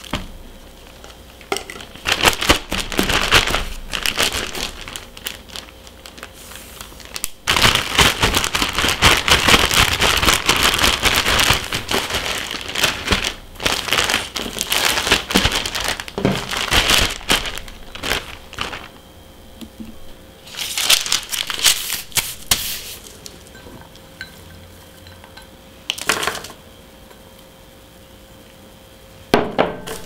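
Thin plastic bag crinkling and rustling as it is worked by hand to mix flour and sugar into pancake mix, in several bursts, the longest lasting about ten seconds.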